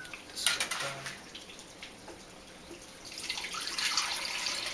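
Grapefruit juice pouring from a glass pitcher into a blender jar, starting about three seconds in and building to a steady splashing. A brief clatter of kitchenware comes about half a second in.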